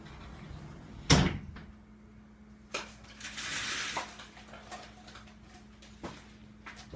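Handling sounds from paint pots on a tabletop: a sharp knock about a second in, then a few lighter clicks and a brief rubbing sound as the paint is picked up, over a faint steady hum.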